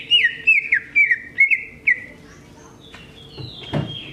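Greater green leafbird (cucak ijo) singing a fast run of sharp, downslurred whistled notes, about four a second, for the first two seconds, then softer, scattered notes. A brief soft thud comes near the end.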